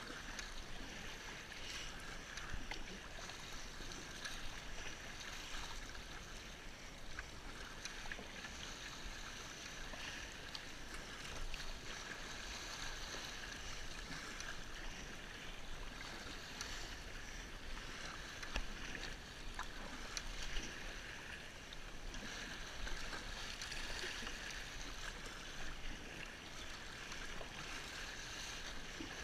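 Choppy sea water splashing and washing against a sit-on-top kayak as it is paddled along: a steady wash with occasional louder splashes.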